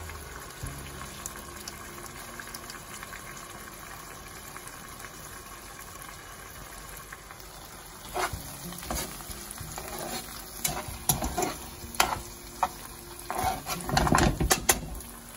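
Spaghetti sauce with prawns and cherry tomatoes sizzling gently in a frying pan. From about eight seconds in, metal tongs toss the pasta with irregular clacks and knocks against the pan, loudest near the end.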